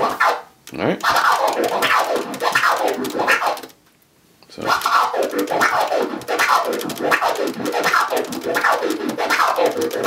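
Turntable scratching in four-click orbits: a record sample pushed forward and pulled back by hand while the crossfader clicks each stroke into short pieces, so each sweep rises and falls in pitch in chopped bits. The strokes run in a steady rhythm, with a brief break just under a second in and a longer pause of about a second around four seconds in.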